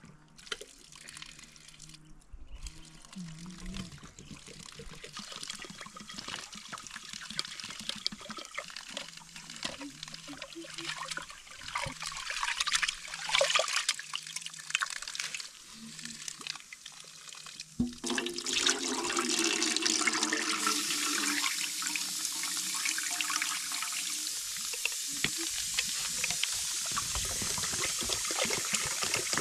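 Rice being washed by hand in water in an aluminium pot, with sloshing and small splashes. From about eighteen seconds in, a steadier, louder rush of running water takes over.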